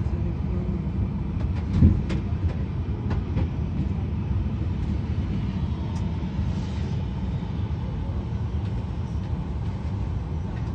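Steady low rumble of an airliner cabin, the hum of the aircraft's air and power systems heard from a window seat, with a single thump about two seconds in.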